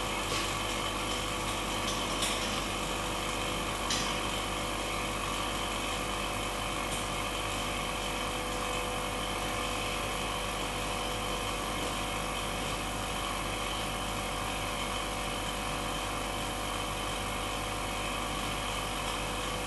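Vacuum pump running steadily, pulling down the vacuum chamber: an even mechanical hum with several steady tones. There are a couple of faint clicks about two and four seconds in.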